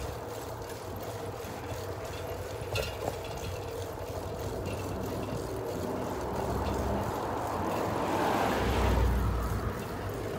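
Steady road noise from riding a bicycle, then an SUV overtaking from behind: its engine and tyre noise swell to the loudest point about nine seconds in and fall away as it pulls ahead.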